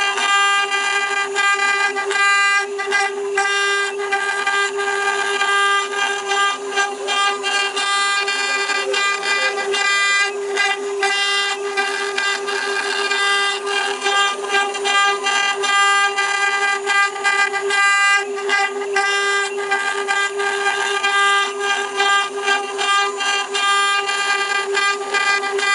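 6090 desktop CNC router's spindle whining at a steady pitch while its bit carves a relief into a wooden board, with a rough, constantly fluttering cutting noise over the whine.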